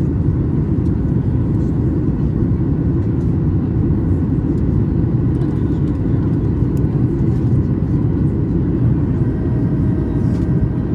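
Steady, loud cabin rumble inside a Boeing 737-800 airliner, the low roar of its engines and rushing air heard from a window seat, holding even throughout.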